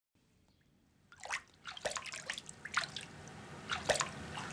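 Water dripping and splashing in a darkroom print tray. It starts about a second in as a run of separate drops and small splashes over a faint watery wash.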